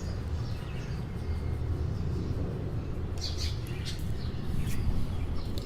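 Small pet birds chirping a few short times, from about three seconds in, over a low steady rumble.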